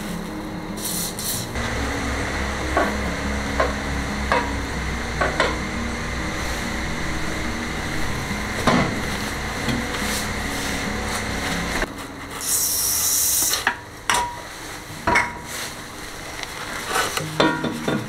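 Aerosol spray can hissing, with one clear burst about twelve seconds in, and scattered clicks and knocks of work on the exhaust.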